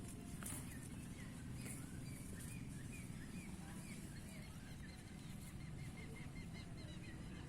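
Small birds chirping faintly in quick, repeated notes, with a fast run of chirps about the middle, over a steady low outdoor rumble.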